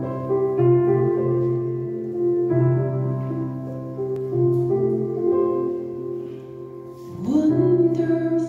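Piano-style keyboard accompaniment playing a slow introduction of held chords. About seven seconds in, a woman's singing voice comes in, sliding up onto its first note.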